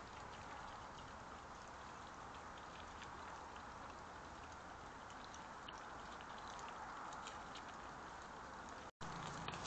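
European badgers foraging and feeding in grass: faint scattered clicks and crackles of chewing and snuffling through the turf over a steady hiss. The sound drops out for an instant near the end.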